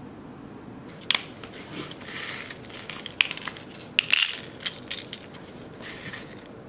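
Small metal-rimmed nail art parts clicking and clinking as they are handled and dropped into a clear plastic compartment box, mixed with rustling; it starts about a second in and stops shortly before the end.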